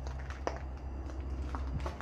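A low, steady hum with a few faint, short clicks and taps: about half a second in, once around a second and a half, and again shortly after.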